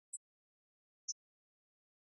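Near silence with no band audible, broken by two very short high-pitched blips about a second apart, the second a little lower in pitch than the first.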